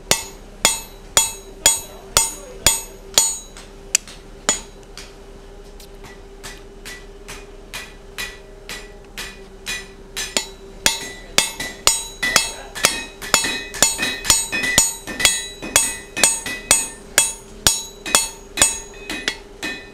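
Hand hammer striking a hot punch, driving a hole through a red-hot 1-inch square mild steel bar on the anvil, with a sharp ringing clang on each blow. Blows come about two a second, pause a few seconds in, then pick up into a quicker run through the second half. A faint steady hum runs underneath.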